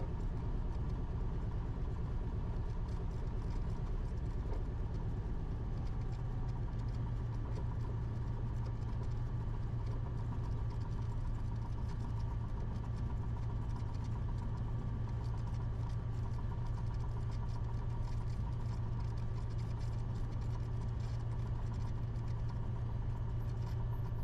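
Cessna 172RG's four-cylinder Lycoming engine running steadily at low power on the ground after landing, a constant low drone with no changes in pitch.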